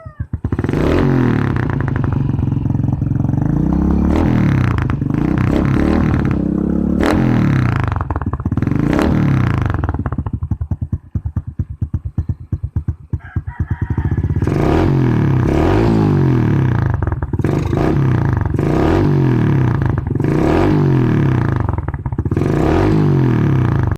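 Kawasaki Fury 125 motorcycle engine running through a Taikom power exhaust with the silencer insert removed and no steel wool packing, revved several times and then settling near idle. In the second half it is blipped over and over, about once a second.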